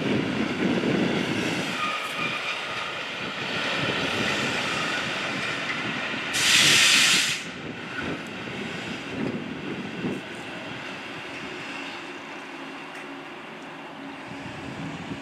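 A ČD class 163 electric locomotive runs slowly through the station, its wheels rumbling for the first couple of seconds over a steady hiss. About six seconds in, a loud burst of released air hisses for about a second.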